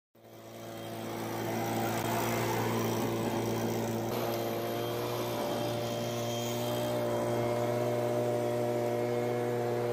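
Handheld leaf blower running steadily at a constant pitch, blowing leaves and debris out, fading in over the first second or two.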